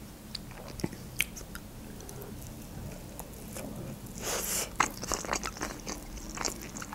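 Close-up eating sounds of a sushi roll: a bite a little past four seconds in, then chewing with small clicks.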